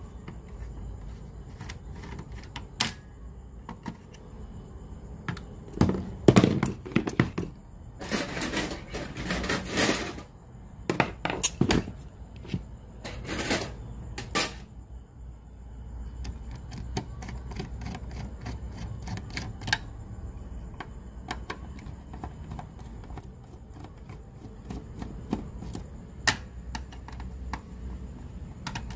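Irregular clicks, taps and light knocks of small plastic and metal parts being handled on a workbench, with a few louder scraping stretches in the first half.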